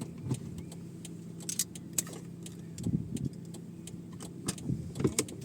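A car running with a steady low engine drone, overlaid by scattered short clicks and rattles.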